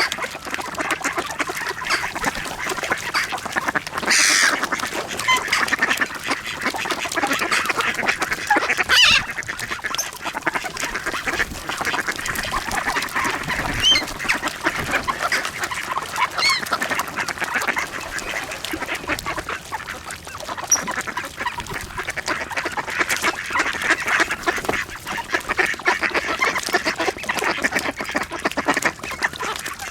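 A large flock of ducks, mostly mallards, quacking all at once while feeding: a dense, continuous mass of overlapping quacks with a few louder calls standing out.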